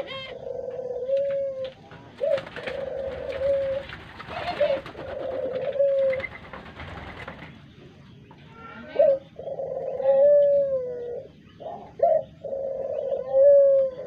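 Barbary doves (ringneck doves) cooing over and over, several birds overlapping, each coo a short rising note followed by a held, rolling note. Some rustling runs under the coos in the first half.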